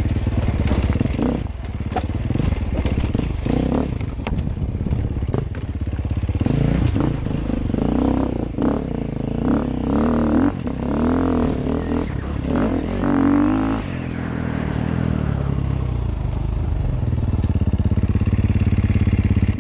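KTM 350 EXC-F single-cylinder four-stroke engine being ridden on rough ground, its revs rising and falling repeatedly through the middle with scattered sharp knocks early on. From about two-thirds of the way in it settles to a steady, lower note.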